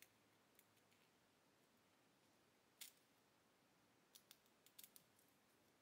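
Small scissors snipping the lace of a synthetic lace-front wig, faintly: a few sparse snips, the clearest a little under three seconds in, then a quick run of several near the end.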